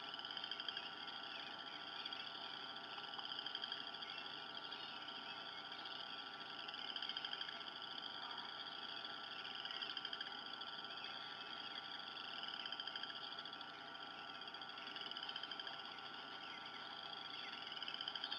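A steady background chorus of high trilling calls, swelling and fading about every three seconds.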